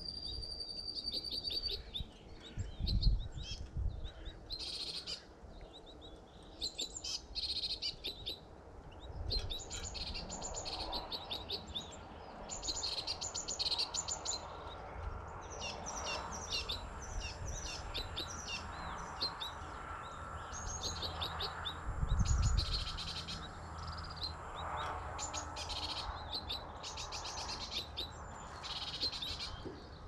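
Small songbirds chirping and twittering in quick repeated series throughout. Wind buffets the microphone in low gusts, strongest a few seconds in and again about two-thirds through.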